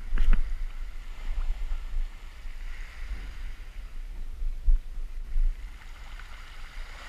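Wind buffeting the microphone: an uneven low rumble that rises and falls, with a sharp knock about a third of a second in.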